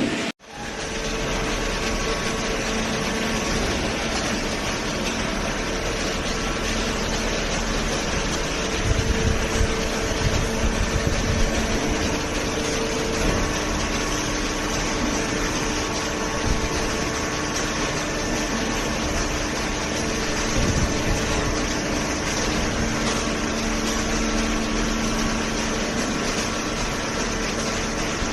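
Hydraulic baler running: a steady hum of its motor and hydraulic pump over general machine noise, with a brief dropout just after the start.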